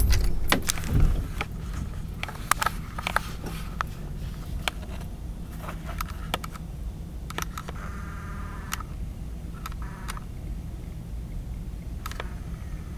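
Inside a parked car: a steady low hum with scattered light clicks and taps, and a short pitched tone twice around the middle.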